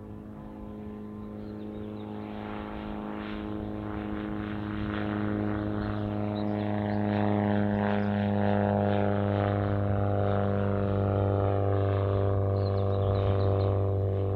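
Motor glider's piston engine and propeller flying past low and climbing, a steady drone that grows louder over the first seven seconds and then holds.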